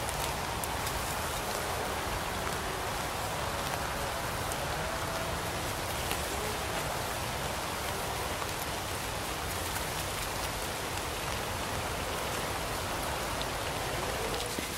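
Rain falling steadily: an even hiss of drops.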